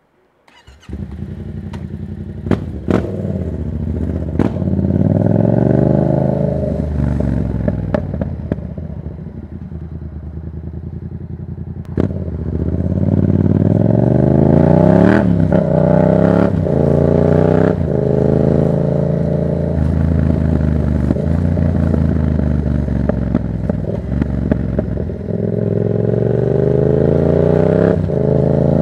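Yamaha MT-07's parallel-twin engine, through a Black Widow exhaust with its dB killer removed, pulling hard through the gears. The revs rise in long sweeps, drop at each shift and hold steadier for a while in the middle, with many sharp cracks along the way. The engine sound starts about a second in.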